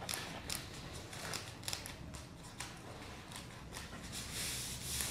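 Cut paper rustling and scraping as hands press and slide layered paper pieces into place on the picture, in a few short irregular rustles with a longer one about four seconds in.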